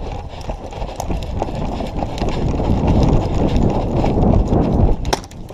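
Footsteps of a person moving quickly, an irregular run of thuds with clicks and rattles of gear close to the microphone.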